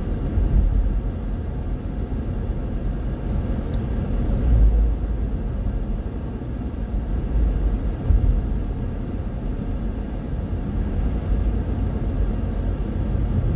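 Steady low rumble of a car driving along a paved road, heard from inside the cabin: engine and road noise.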